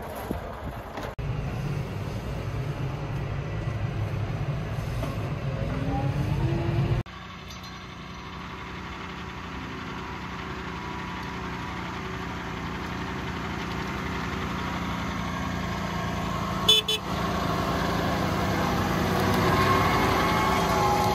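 Tractor diesel engines running under load. First a small red IMT tractor towing a spiked roller, its engine note rising just before it breaks off. Then a John Deere 6155R pulling a seedbed cultivator, its steady engine sound growing louder as it comes closer, with a brief high-pitched toot a few seconds before the end.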